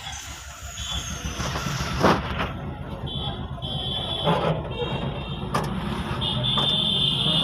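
A motor vehicle engine running steadily in a workshop, with a high-pitched beeping tone that comes and goes several times and a couple of sharp metallic clicks.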